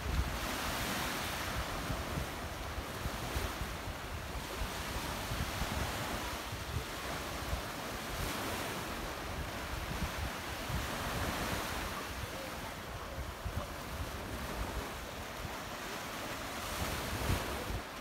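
Small sea waves washing onto a sandy shore, the wash swelling and easing every few seconds. Wind buffets the microphone near the start and again near the end.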